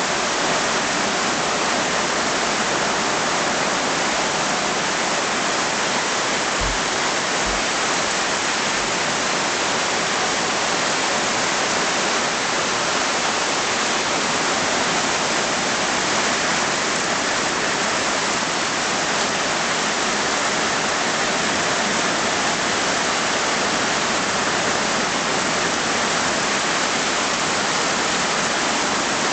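Tropical rain falling steadily: an even, unbroken hiss of rain on surfaces.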